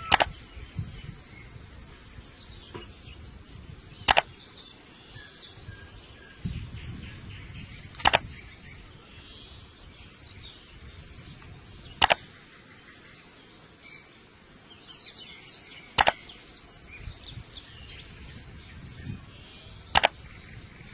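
Six sharp clicks, evenly spaced about four seconds apart, over faint bird chirping in the background.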